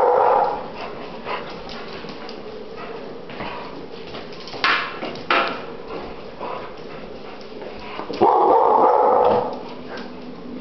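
Wolfhound-lurcher cross dog vocalizing in excitement: a drawn-out call at the very start and another about eight seconds in, with a couple of short sharp sounds around the middle.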